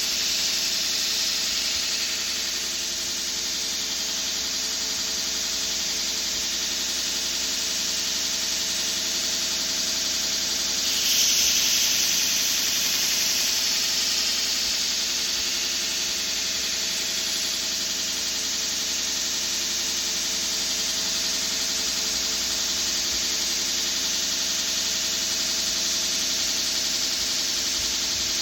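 Power grinder running steadily with a steel knife blade held against it: a steady hiss over a hum. The grinding gets louder for a few seconds about eleven seconds in.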